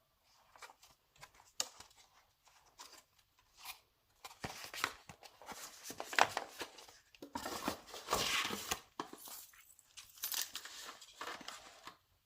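Packaging being handled and torn open, crinkling and tearing. There are a few light clicks at first, then a denser run of crackling through the rest.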